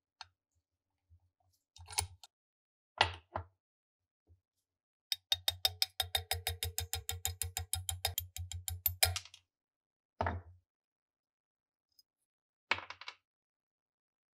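Sharp metal clicks and taps of a steel pick working the rusty parts of an SKS rifle receiver. Near the middle there is a fast, even run of ticks, about eight a second, lasting some four seconds, and after it come a couple of single knocks.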